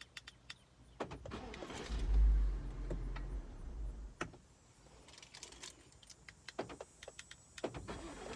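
Scattered sharp clicks inside a Ford Explorer ST's cabin while the push-button start is tried without the engine catching, with a brief low rumble about two seconds in.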